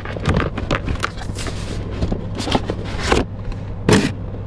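Cardboard and plastic packaging being rummaged through by hand, a string of irregular rustles and clicks, over a steady low rumble in the background.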